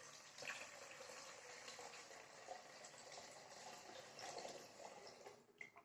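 Cold water running steadily into a pan over raw eggs, stopping about five and a half seconds in. It is faint.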